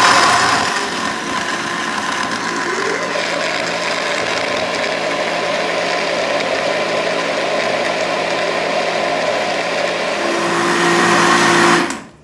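Countertop blender motor running, blending frozen strawberries, banana, milk and yogurt into a smoothie. It is louder for the first second or so, then runs steadily, and switches off abruptly near the end.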